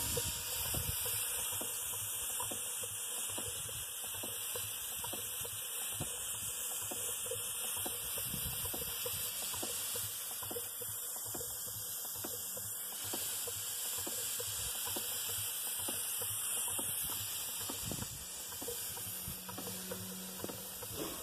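Miniature live-steam Allchin traction engine hissing steadily with escaping steam, with faint regular light ticks throughout.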